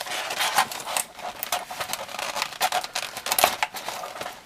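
Sellotape being peeled off an action figure and its clear plastic packaging, with irregular crinkling and crackling throughout.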